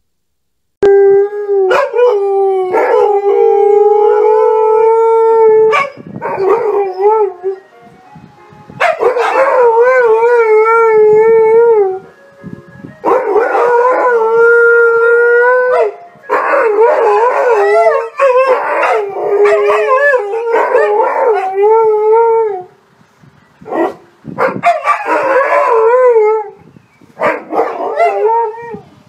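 Alaskan malamutes howling: long, wavering howls, often two dogs at once on different pitches, starting about a second in and coming in several runs with short breaks between them.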